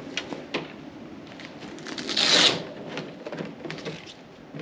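The plastic hull sheet of a Tucktec folding kayak crinkling and crackling as it is unrolled and handled, with a louder rustling burst about two seconds in.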